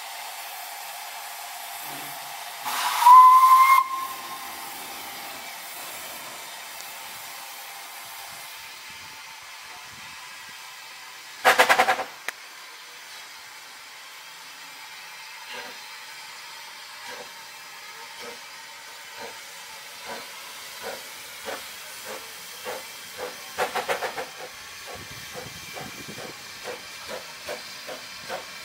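Narrow-gauge steam locomotive hissing steam while standing, with a short whistle about three seconds in and another short, loud blast around twelve seconds. From about halfway its exhaust chuffs begin, slow at first and quickening as the locomotive gets its train under way.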